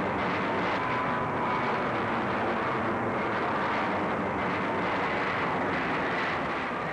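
Jet airliner engines at takeoff power: a loud, steady rushing noise with a faint high whine running through it.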